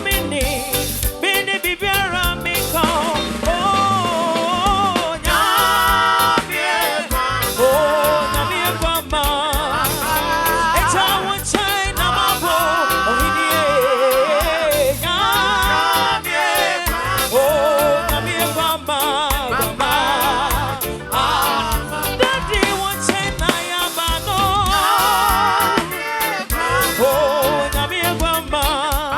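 Gospel song: a singer's voice with vibrato over a continuous instrumental backing.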